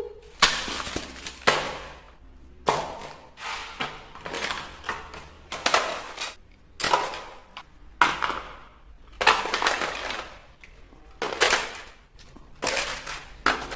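Plastic toy packaging being handled and opened, with repeated crackling and crushing bursts, about one a second, each starting sharply and fading away.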